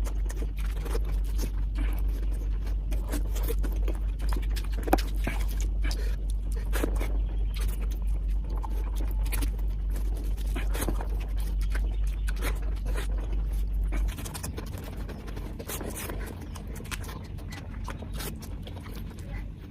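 Close-miked eating sounds: wet chewing of biryani and gravy with many small mouth clicks and scrapes. A low hum sits underneath and stops about two-thirds of the way through.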